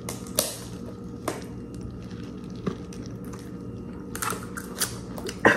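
Eating a seafood boil: plastic-gloved hands pulling apart shellfish, with quiet chewing and scattered small clicks and crackles, and one louder burst near the end.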